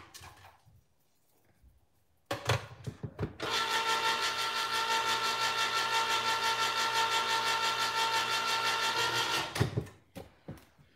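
Electric can opener cutting the lid off a small can, its motor running with a steady whine for about six seconds and then stopping abruptly. A few clicks and knocks come just before, as the can is set in place.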